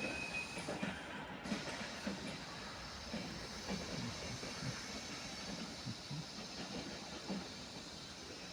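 A train running past on the track, its wheels knocking irregularly over the rails against a steady rushing noise.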